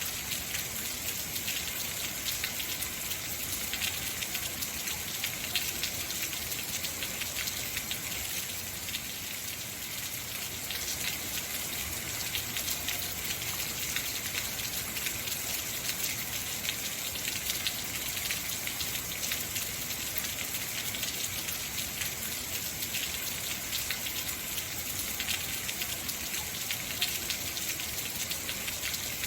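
Heavy rain falling steadily, a dense hiss of drops with many small patters on hard surfaces.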